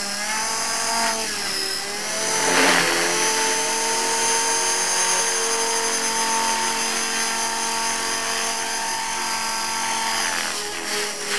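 Radio-controlled model helicopter's motor and rotor whine. The pitch shifts as it spins up, and it grows loudest as it lifts off about two and a half seconds in. It then holds a steady whine in flight, and the pitch changes again near the end.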